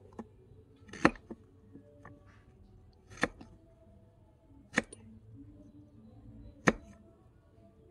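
A tiny knife slicing carrot on a small wooden cutting board: four sharp taps of the blade against the wood, spaced about one and a half to two seconds apart.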